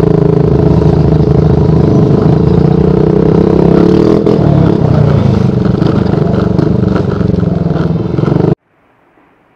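Motorcycle engine running loud and close at a steady pitch, the tone changing about four seconds in. It cuts off suddenly near the end, leaving only a faint hiss.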